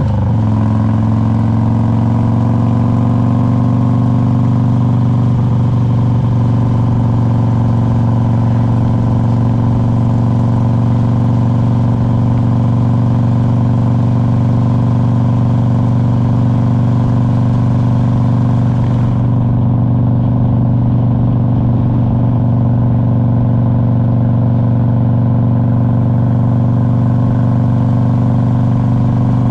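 2001 Harley-Davidson Road King's Twin Cam 88 V-twin engine running on the road. Its pitch drops briefly right at the start, then holds steady at a constant speed.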